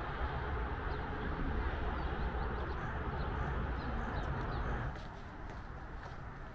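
Outdoor ambience: a steady rush of distant road traffic with a few faint bird chirps. About five seconds in it drops to a quieter, calmer background.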